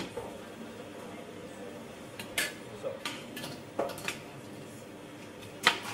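Long metal spoon clinking and scraping against a large stainless steel pot as it is stirred: about five sharp clinks spread over the last few seconds, over a steady background hiss.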